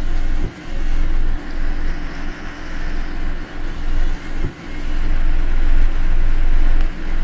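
Car driving through heavy typhoon rain: tyre noise on the wet road and rain on the car over a low rumble that swells and dips.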